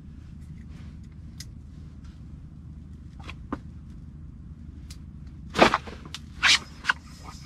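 A few sharp knocks and clatters from handling a fishing rod, reel and line, the loudest about five and a half seconds in and two more shortly after, over a steady low hum.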